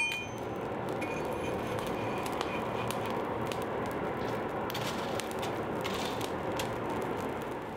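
Coal forge fire burning under a forced-air blast: a steady rushing noise with scattered small crackles, dying away near the end.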